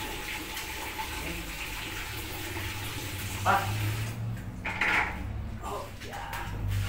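Water running from a tap into a plastic bucket, cut off about four seconds in, followed by a couple of short clatters as the bucket is handled.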